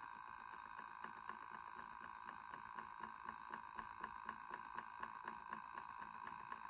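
Electric Eel Wheel Nano 2.0 e-spinner running steadily: a faint motor hum from the spinning flyer and bobbin, with a light tick about three times a second.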